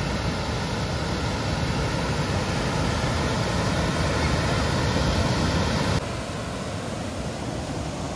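Fast-flowing water below a dam rushing steadily, a continuous even noise; it drops a little in level about six seconds in.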